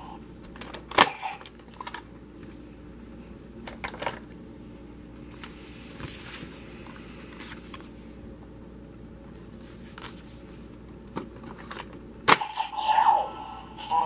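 Plastic clicks and knocks from handling a Kamen Rider Ryuki dragon-head visor toy as it is loaded: a sharp click about a second in, smaller clicks around four seconds and a soft rustle in the middle. A sharp click near the end sets off the toy's electronic sound effect with falling tones.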